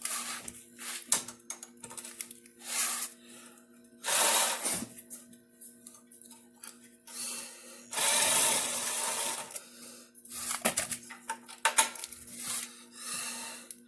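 Hand tools and loose metal parts clinking and scraping while bolts are worked off a mini bike, with two longer scraping or rattling stretches about four and eight seconds in. A faint steady hum runs underneath.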